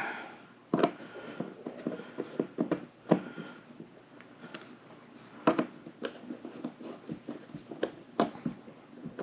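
Scattered light clicks and knocks as hands handle a digital readout scale's small metal end bracket and turn its screws back in with a screwdriver.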